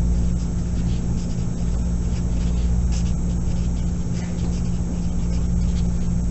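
Black Sharpie felt-tip marker scratching and squeaking on paper in short strokes as a sentence is written by hand, under a steady low hum that is the loudest sound.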